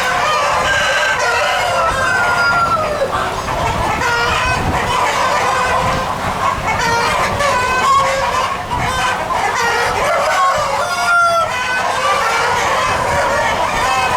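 A large flock of chickens clucking and calling all at once in a dense, continuous chorus, with a few longer drawn-out calls from roosters crowing.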